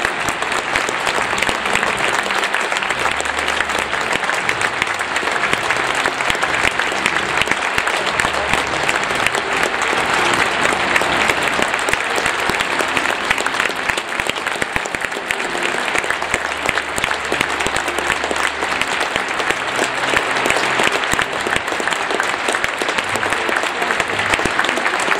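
Large stadium crowd applauding, dense steady clapping that goes on without a break.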